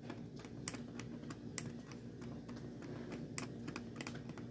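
Faint, irregular small clicks and scratches of a fine tool scraping the insulating coating off a circuit-board trace on a TV panel board, several a second, over a steady low hum.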